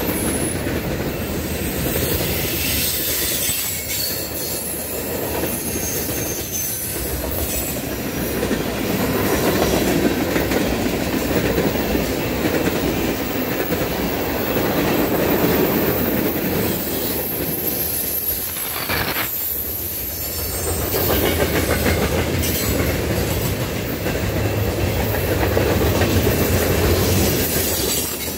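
Cars of a mixed freight train (centerbeam flatcars, tank cars and covered hoppers) rolling past close by: a steady rumble and clatter of steel wheels on the rails, with faint high wheel squeal now and then. The noise dips briefly a little after halfway, then picks up again.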